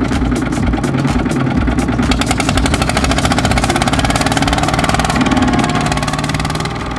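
Two-wheel walking tractor's single-cylinder diesel engine running hard with a fast, even chugging as it hauls a trailer through sticky mud.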